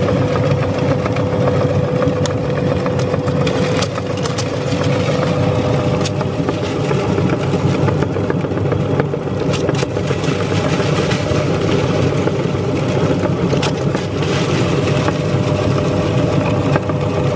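Belt-driven electric meat grinder running steadily with a humming tone, while crunchy cookies crack and crunch irregularly as the auger grinds them through the cutting plate into crumbs.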